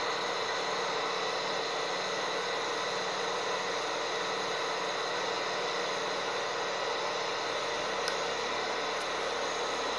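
Steady drone and hiss of a train, with a faint tick or two near the end.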